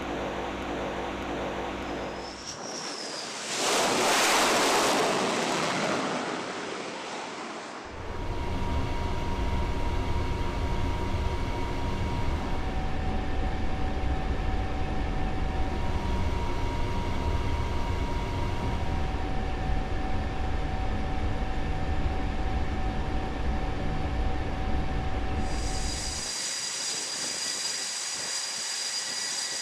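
Aircraft-carrier machinery and jet noise: a steady mechanical hum, then a loud rushing surge lasting about four seconds, then a long steady low rumble with faint tones coming and going. Near the end a high, steady jet-engine whine takes over.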